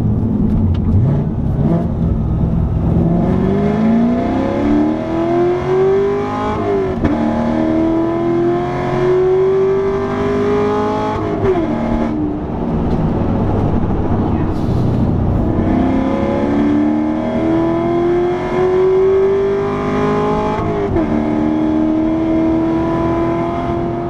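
C7 Corvette's 6.2-litre LT1 V8 with a loud exhaust, heard from inside the cabin, pulling hard through the gears of its manual gearbox. The engine note climbs and drops sharply at an upshift about seven seconds in and again about eleven seconds in, then holds steadier. It climbs again in a second pull and drops at another shift about twenty-one seconds in.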